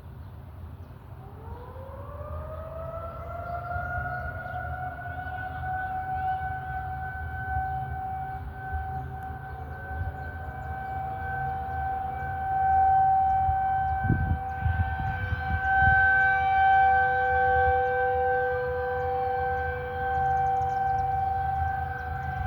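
Whelen Vortex R4 outdoor warning siren winding up from about a second in. Its rising tones level off into a steady chord of two tones, and a third, lower tone joins about halfway through. The level swells and fades as it sounds over a low rumble.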